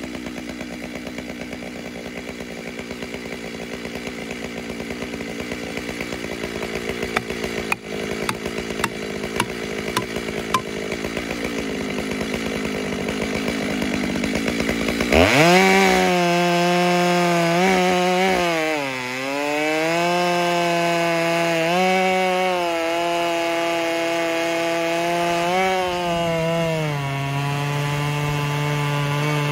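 Makita 7900 two-stroke chainsaw bucking a huge white oak log, running under load in the cut. About halfway through, its note suddenly jumps louder and higher, then dips and climbs again a few times as the chain bites.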